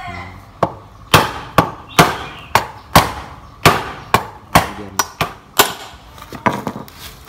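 A wooden stick strikes the opened crankcase of a Stihl 660 chainsaw: about a dozen sharp knocks, roughly two a second, growing weaker and more spaced near the end. The tapping knocks the engine parts home before the bolts are tightened further.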